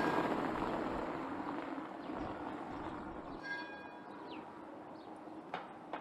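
A car driving past and away over a cobblestone street, its tyre noise loudest at the start and fading. Short high chirps come later, and a sharp click sounds near the end.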